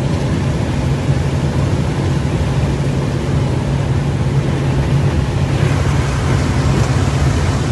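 Steady noise of a vehicle driving on a wet road: tyre hiss with a constant low engine and road hum, loud and unchanging.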